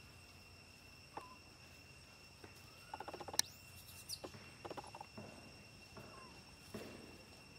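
Baby macaque giving short squeaky calls, with a quick run of clicks in the middle, over a steady high two-tone insect drone.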